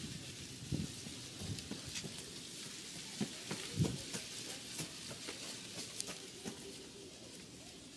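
Rabbit hide being pulled and peeled off a hanging carcass by gloved hands: a continuous fine crackling and rustling, with a few soft thumps, the loudest about four seconds in.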